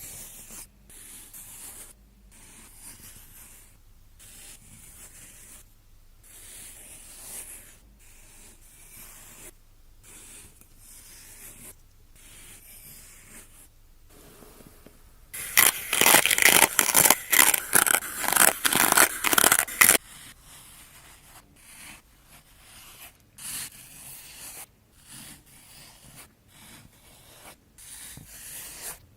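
Kinetic sand being scraped and cut in a series of soft strokes, each a second or so long with short pauses between. About halfway through comes a much louder stretch of rapid gritty scraping that lasts around four seconds and then stops suddenly.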